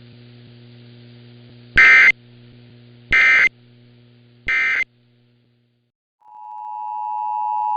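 Emergency Alert System end-of-message code: three short, loud, buzzy data bursts about 1.3 seconds apart, over a low electrical hum that stops after the third burst. About six seconds in, the EAS two-tone attention signal fades in and holds steady, growing louder.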